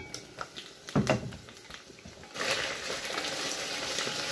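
A sharp knock of the frying pan's glass lid about a second in, then, a little past halfway, food dropped into hot oil starts sizzling steadily in the pan as it is stirred with a wooden spatula.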